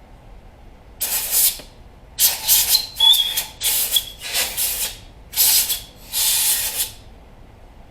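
Compressed-air blow gun fired in about seven short hissing blasts, some with a faint whistle, blowing the chips out of a freshly tapped bolt hole.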